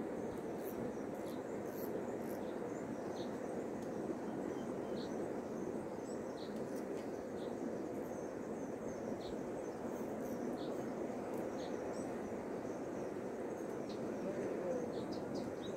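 Steady rushing of a flooded river's fast-flowing water, with scattered short high chirps over it that come more often near the end.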